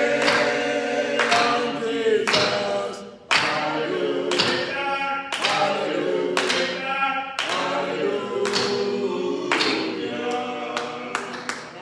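Men's voices singing a gospel song a cappella, with sharp hand claps about once a second.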